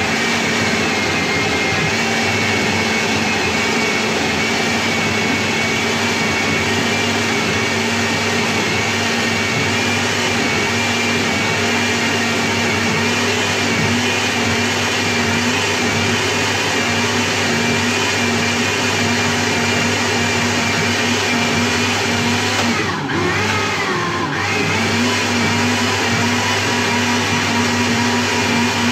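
Countertop blender motor running steadily with a steady whine, blending a fruit-and-milk smoothie. About three-quarters of the way through, the motor's pitch dips for a couple of seconds, then picks back up.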